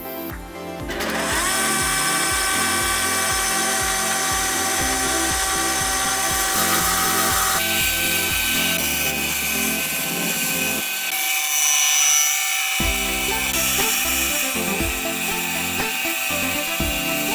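An electric power tool's motor spins up about a second in and runs steadily with a whine, over background music with a steady beat.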